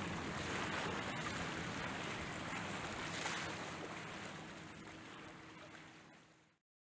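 Choppy sea water and wind on the microphone, with a faint steady low hum underneath. The sound fades out over the last couple of seconds and cuts to silence.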